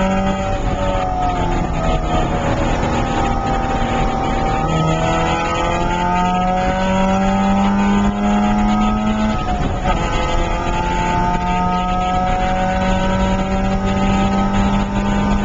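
Porsche 968's 3.0-litre four-cylinder engine heard from inside the cabin on track: its pitch falls as the car slows in the first two seconds, then climbs under acceleration, breaks briefly about nine and a half seconds in at a gear change, and climbs again.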